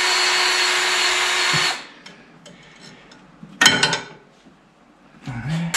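Battery-powered grease gun's motor running steadily for about two and a half seconds while pumping grease into a snowmobile suspension grease fitting, then stopping. A short clatter follows about three and a half seconds in.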